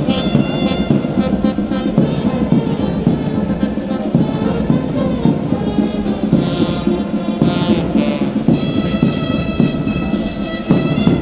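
Orchestral music with brass and timpani, playing steadily.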